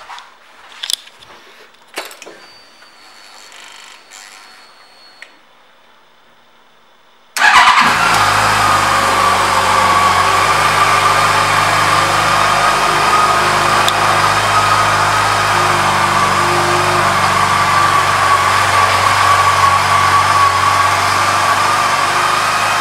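A few faint clicks, then about seven seconds in the Yamaha FJR1300's inline-four engine comes in abruptly, loud and close, and idles steadily.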